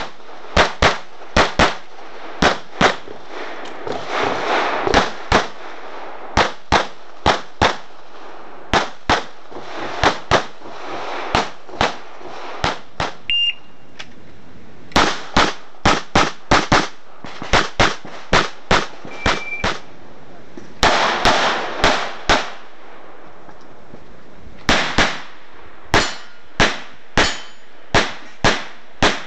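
CZ 75 SP-01 Shadow pistol fired in rapid strings of shots, mostly quick pairs, with a few short pauses between strings.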